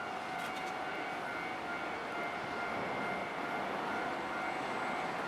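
Japanese railway level crossing alarm ringing its steady electronic tone, over a steady rumble of traffic or rail noise that grows slightly louder near the end.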